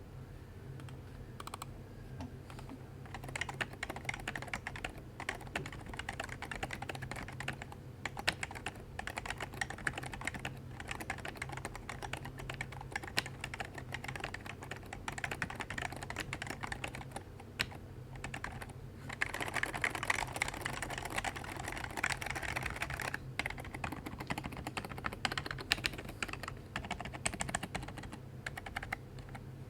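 Happy Hacking Keyboard being typed on, a fast continuous patter of keystrokes that picks up about three seconds in and is densest about two-thirds of the way through. Its stabilizers are lubed to stop rattle. A steady low hum runs underneath.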